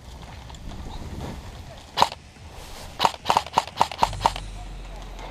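Airsoft guns firing: a single sharp shot about two seconds in, then a quick string of about seven shots a second later.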